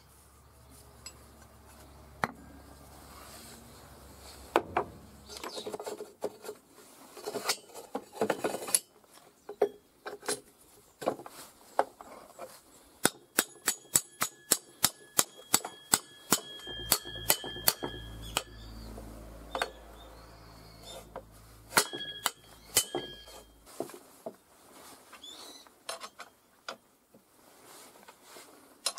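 Hammer striking steel while new 6204 ball bearings are driven into a mini excavator's rusty track rollers and the roller frame. The blows come singly at first, then as a quick run of about four taps a second in the middle, and some strikes leave a short metallic ring.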